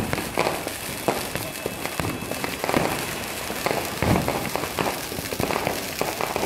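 Fireworks and firecrackers going off all around: a dense, unbroken run of sharp bangs and crackling, with a few heavier booms among them.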